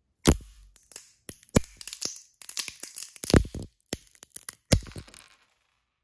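A walnut shell being crushed in a metal hand nutcracker: one sharp crack, then a run of crunching, splintering cracks as the shell breaks apart, stopping about five seconds in.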